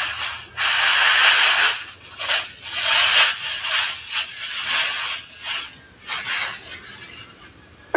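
Paint being sprayed in a series of short hissing bursts, one for each pass, the longest about a second in.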